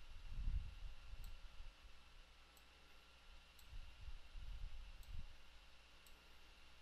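Faint clicking of a computer mouse, a handful of sharp clicks spaced about a second apart, with a few soft low bumps of hand and desk handling.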